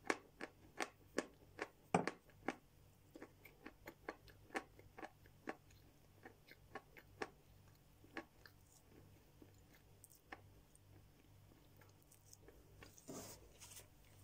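Crunchy chewing of chalk in the mouth, sharp crunches about two to three a second that thin out after about six seconds. A short paper rustle near the end.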